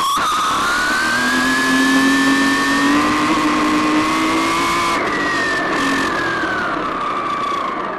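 RC car motor whining under throttle, rising steadily in pitch for about five seconds as it speeds up, then falling away as it slows.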